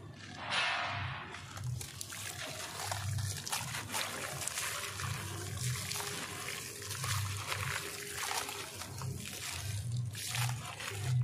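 A dry sand-cement chunk crumbling in the hands, grit and powder trickling and pattering into a tub of water, with crackly crunching throughout.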